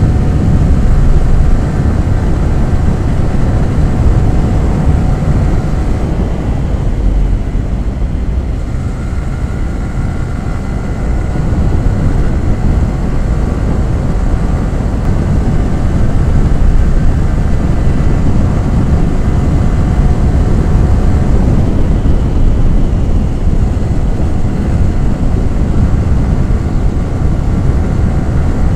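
Yamaha R15 V3's single-cylinder 155 cc engine and exhaust running under way, mixed with wind rush. The sound eases off about eight seconds in and builds again from about eleven seconds.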